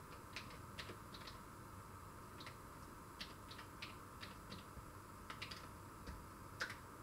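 Keystrokes on a computer terminal keyboard as a password is typed: about fifteen irregular clicks, the loudest one near the end. Under them runs a faint steady modem tone from the acoustic coupler.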